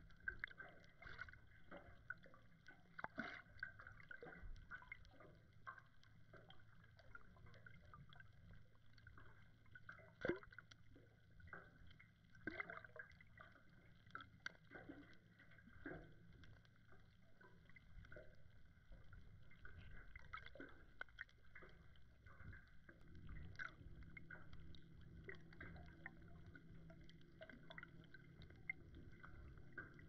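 Faint underwater ambience picked up by a submerged action camera: a low, steady hum with scattered small clicks and crackles. The hum grows stronger about 23 seconds in.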